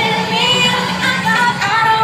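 Live pop music: a woman singing over a band, amplified for an open-air crowd.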